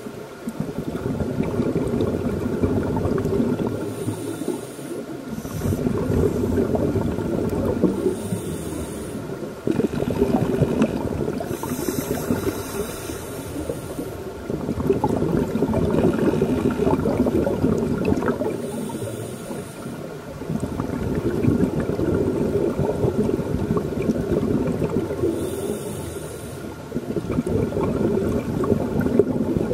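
Scuba regulator breathing underwater: long bubbling rushes of exhaled air about every five seconds, with short hissing inhalations through the regulator in the pauses between.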